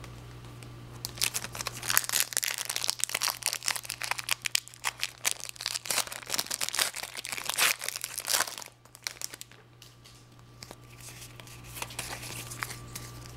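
Foil trading-card booster pack crinkling and being torn open by hand: a dense run of crackles and tearing from about a second in until about eight and a half seconds, then softer, scattered handling sounds. A steady low hum lies underneath.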